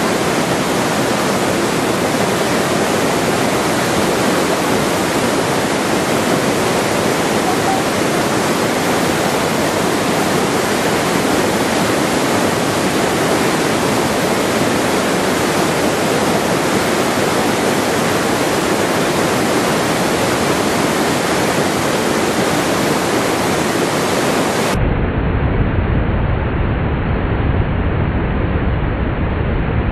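Rushing stream water, a loud, steady hiss. About 25 seconds in it cuts abruptly to a duller, lower rumbling noise.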